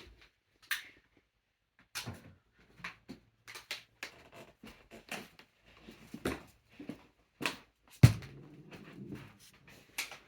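Handling noise from a switched-off vacuum cleaner: irregular clicks and knocks as it is unplugged and its cord gathered, with one heavier thump about eight seconds in.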